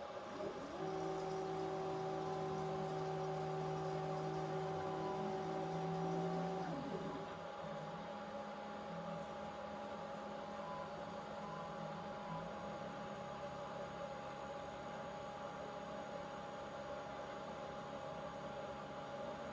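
Drive motors of a benchtop blacksmithing robot whining at a steady pitch as the robot travels to its scanner mount. They stop about seven seconds in, leaving a fainter steady electrical hum.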